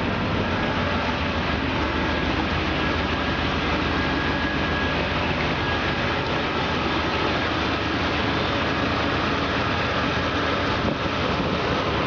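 The engine of a 1981 Chevrolet Silverado pickup idling steadily, a constant low rumble.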